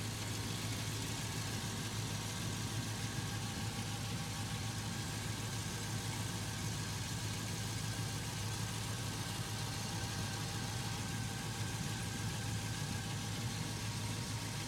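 2003 Chevy Avalanche's engine idling steadily, running after a coolant refill while the system is checked for leaks.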